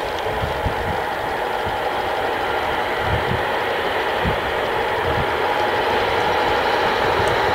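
CFR Class 40 electric locomotive 40-0666-4 running slowly into the station: a steady mechanical running noise that grows gradually louder as it approaches, with a few low knocks.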